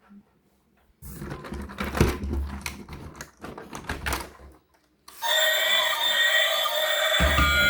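Rapid clicking and clattering of toy vehicles being handled for a few seconds, then music starts about five seconds in.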